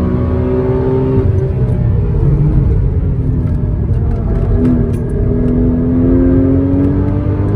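Porsche Cayman S (981) 3.4-litre flat-six engine pulling under load, heard onboard with road and wind noise. The engine note rises, drops back around a second in, then climbs steadily again from about halfway.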